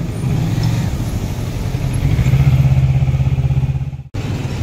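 Motor vehicle engine running close by in street traffic: a steady, pulsing low rumble that swells louder in the middle and breaks off abruptly for a moment near the end.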